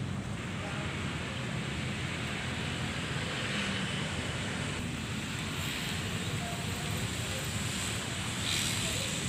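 Steady rushing noise of wind on the microphone, with a low hum underneath.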